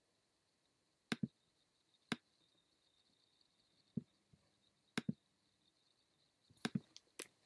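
About eight faint, sharp computer mouse clicks, some in quick pairs, scattered over several seconds with near silence between.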